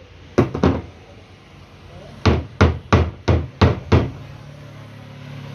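Hammer blows on an e-rickshaw gearbox, knocking the large pinion loose to take it out: two quick knocks, then six sharp strikes at about three a second.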